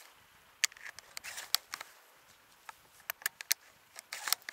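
Scattered crisp crunches and rustles close to the microphone, as a hunter shifts in place in snow among dry brush, with a quick run of them near the end.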